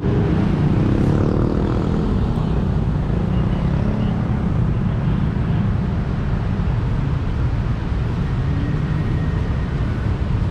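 City road traffic: a steady low rumble of engines, with one passing vehicle's engine note falling in pitch over the first couple of seconds.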